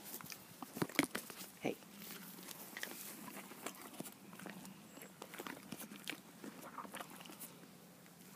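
Irregular crackling and crunching of dry grass and bracken, close by, in short uneven bursts.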